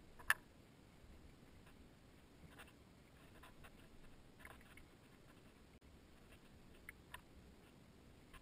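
Faint, scattered clicks and light taps of hand work on parts in a car's engine bay, with one sharper click about a third of a second in and two small ones near the end.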